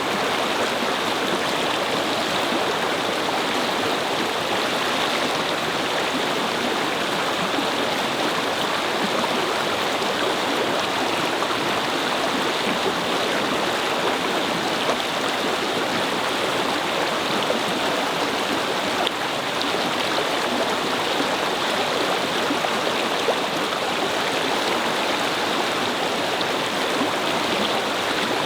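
A shallow brook babbling over stones: a steady, even rush of flowing water with fine gurgles.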